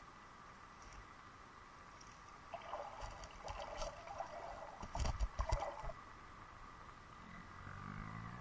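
Muffled underwater crunching and clicking of creek gravel and stones as a person wades past close by, with a few heavy thumps about five seconds in.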